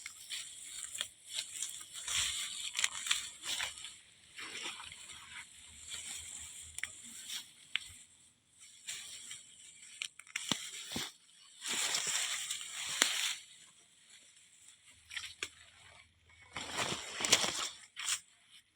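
Wet grass and weeds rustling and tearing in irregular bursts as they are pulled up by hand, with a few small snaps.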